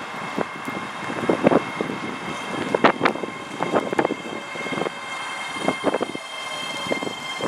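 ScotRail Class 385 electric multiple unit approaching along the platform, a thin steady electric whine under gusty wind buffeting the microphone. More high whine tones join near the end as the train draws closer.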